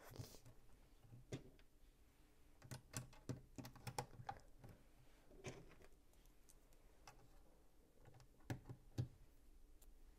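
Small plastic LEGO pieces clicking and tapping as they are handled during a build: scattered light clicks, with a quick run of them about three seconds in and two sharper ones near the end.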